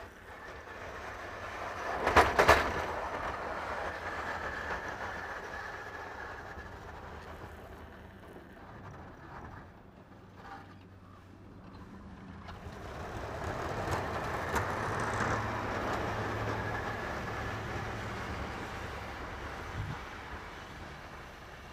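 Pickup truck with a V-plow pushing snow: the engine running under load with the rush of snow off the blade, swelling and fading as the truck moves nearer and away. A few sharp knocks sound about two seconds in.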